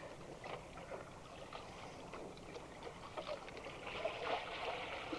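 Water splashing and churning as a hooked tarpon of about 130 pounds thrashes at the boat's side while it is brought in for the gaff. The splashing grows louder about four seconds in.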